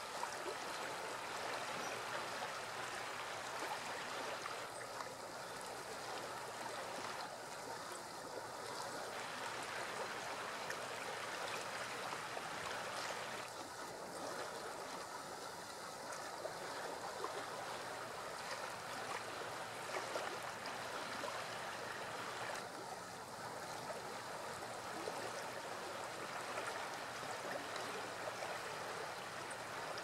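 Steady rush of flowing stream water.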